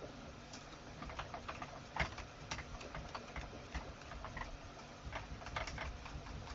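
Scattered light metallic clicks and taps, the sharpest about two seconds in, as steel hold-down bolts and washers are handled and the rotary table fixture is turned.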